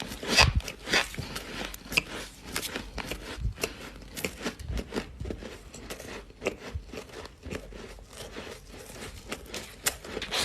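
Close-up chewing of freezer frost: a dense, irregular run of short crunches, with a few louder bites in the first couple of seconds and then quicker, smaller crunches.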